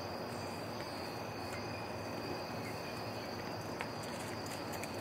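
Steady insect chorus, a constant high-pitched chirring like crickets.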